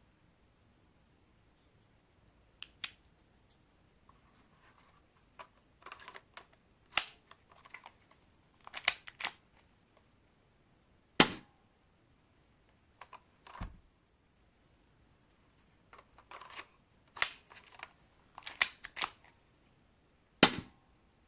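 Spring-powered Colt 25 copy airsoft pistol being cocked and fired: clusters of sharp clicks and snaps with pauses between them, the loudest snaps about 11 seconds in and near the end.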